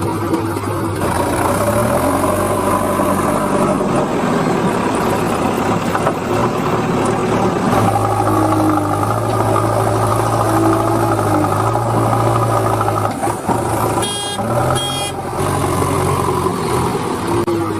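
Vehicle engine sound, steady with a few shifts in pitch, with two short high tones near the end.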